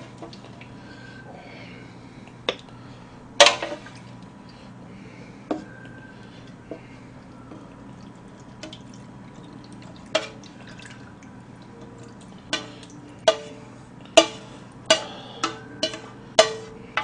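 Metal spoon scraping and clinking against a stainless steel pot while the last of a scorched-rice soup is scooped and tipped into a bowl, with small drips of liquid. The clinks come a few seconds apart at first and quicken near the end, some with a short metallic ring.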